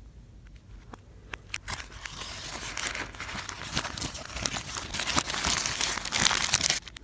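A McDonald's McChicken paper wrapper being handled and crinkled by hands close to the microphone. It starts with a few light clicks, turns into dense crackling about two seconds in, and grows louder toward the end, stopping briefly just before the close.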